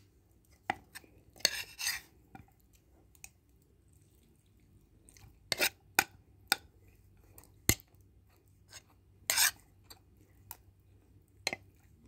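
Close-up eating sounds of a person chewing chicken biryani: quiet chewing broken by about ten scattered sharp clicks and a few short rustling scrapes.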